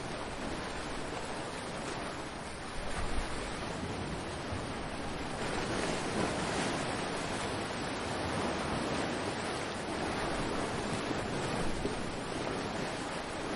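Ocean waves washing ashore in a steady surf that swells and eases, with some wind noise on the microphone.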